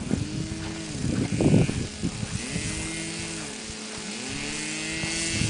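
Model airplane's motor buzzing in flight, its pitch rising and falling again and again as the plane circles and passes. A loud low rumble comes about a second and a half in.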